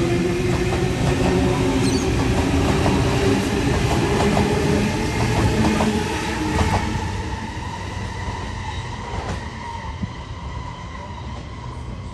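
Sydney Trains B-set (Waratah Series 2) electric multiple unit pulling away past at close range, its wheels clicking repeatedly over rail joints above a steady rumble. The sound fades gradually once the rear of the train has gone by, about halfway through.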